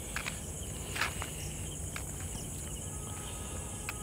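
Steady high chirring of crickets over a low hum, with a few faint taps, the clearest about a second in.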